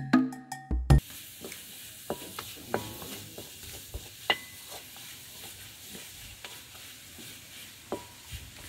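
Music runs briefly and cuts off about a second in. After that, lumps of jaggery hiss and sizzle as they melt in a hot iron wok over a wood fire, with the scattered scrapes and taps of a wooden spoon stirring them against the pan.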